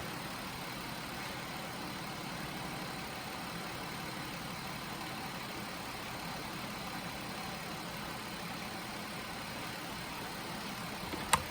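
Mazda MPV's 3.0-litre V6 idling warm and steady. A single sharp click near the end.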